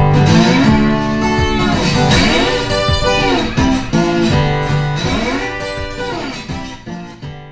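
Guitar music, with notes bending and sliding in pitch, fading out near the end.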